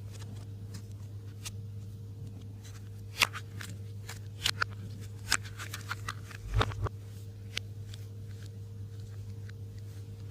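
Slime being worked by hand, giving scattered sticky clicks and pops, a few of them louder, over a steady low hum.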